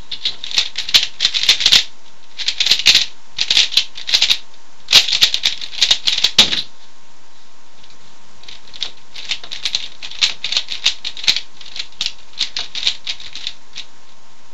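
Plastic 3x3 Rubik's cube being turned fast by hand with only R and U face turns, giving rapid clacking click trains in several bursts. There is a pause of about two seconds near the middle, then lighter, sparser turning.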